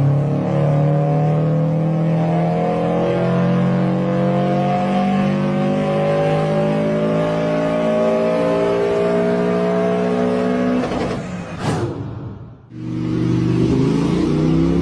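Car engine under steady acceleration, its pitch rising slowly and evenly for about eleven seconds. About twelve seconds in it gives way to a brief sharp rising sweep and a short drop in level, and another engine sound starts just after.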